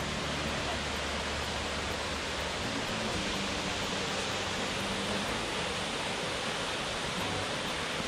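Tad Yuang waterfall's twin falls pouring into their plunge pool: a steady, even rush of falling water.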